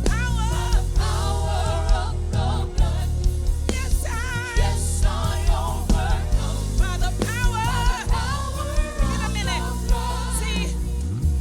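Gospel worship song performed by a band: lead and backing voices singing with vibrato over a steady bass line and a regular drum beat.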